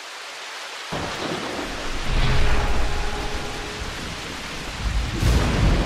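Rain and thunder sound effect: steady rain hiss fading up, with a deep rumble of thunder coming in about a second in and swelling twice.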